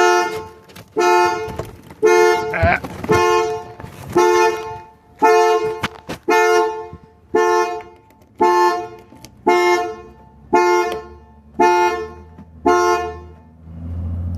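2002 Cadillac Eldorado's anti-theft alarm pulsing the car's horn, about thirteen honks at roughly one a second. It keeps sounding with the engine started, then stops near the end, leaving the engine idling.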